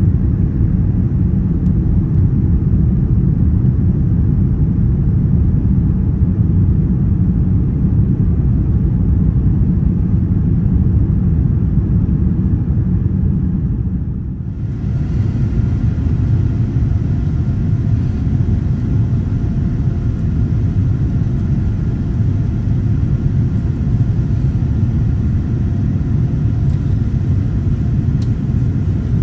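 Cabin noise of a Boeing 787-10 climbing out after takeoff: a steady low rumble of jet engines and airflow. It dips briefly about halfway through, then returns with a little more hiss.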